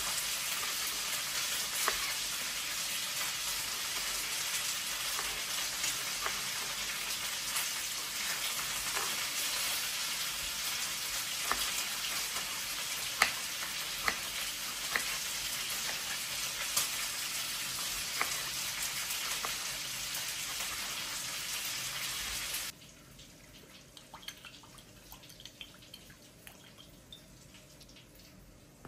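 Food frying in a hot pan: a steady sizzle with occasional sharp clicks. It cuts off abruptly about three-quarters of the way through, leaving only faint light taps.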